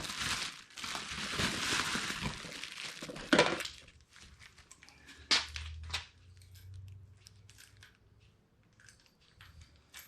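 Packaging being rustled and crinkled while a Denali D4 LED light pod and its parts are taken out, then a few light clicks and knocks of parts being handled.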